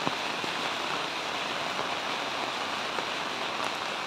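Heavy rain falling steadily on a paved road and roadside foliage: an even hiss with a few faint drop ticks.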